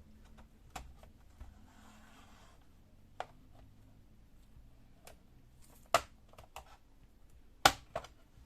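Plastic clips of a laptop's palm rest cover clicking and snapping as a sharp tool pries it loose. The clicks are scattered, with the two loudest about six seconds in and again near the end.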